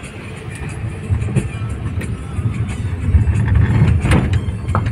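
Car driving on a wet road, heard from inside the cabin: a low engine and tyre rumble that grows louder about three seconds in.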